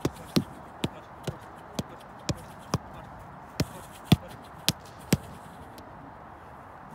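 A football being struck in quick passes, a run of sharp thuds about two a second that stops for the last second or two.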